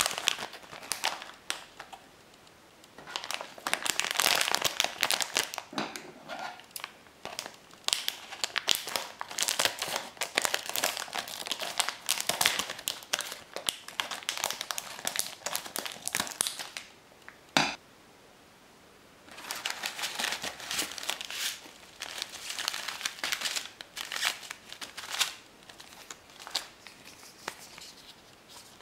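Plastic candy-kit packaging crinkling and rustling in long bursts as the bag is handled, cut open with scissors and its plastic tray and inner wrappers pulled out. There is a short pause in the middle with a single sharp click, and lighter ticks of plastic near the end.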